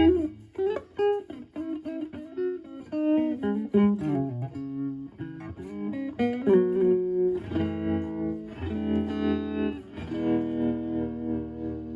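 Clean electric guitar (Stratocaster with HSH pickups) through a Joyo JF-09 analog optical tremolo pedal. It plays picked single-note phrases, then from about halfway through strums held chords whose volume pulses rhythmically from the tremolo.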